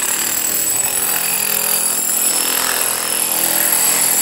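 Handheld electric chipping hammer running steadily, chiseling out cracks in a concrete driveway.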